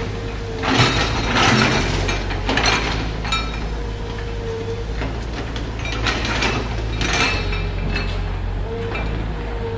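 Komatsu excavator's diesel engine running steadily, with a series of sharp metallic clinks and scrapes from the digging work, loudest in the first few seconds and again about two-thirds of the way through.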